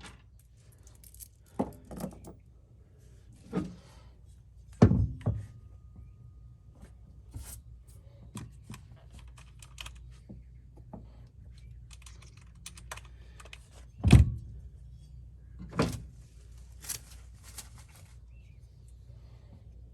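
Metal bolts and tie-down hooks being handled and set down, with scattered clinks and several knocks; the loudest knocks come about five and fourteen seconds in.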